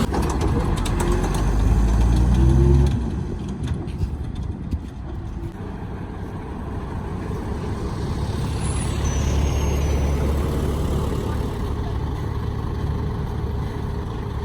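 Heavy diesel dump truck engine revving, its pitch rising for about three seconds, then dropping back to steady running, with a few clicks and knocks just after and the engine swelling again about eight seconds in.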